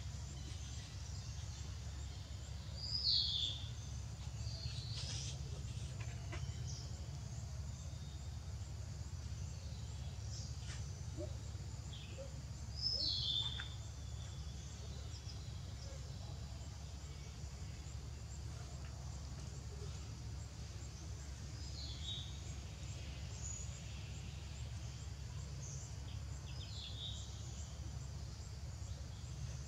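Outdoor ambience: a steady low rumble with birds giving short, high, falling chirps every few seconds, the loudest about three seconds in and again about ten seconds later.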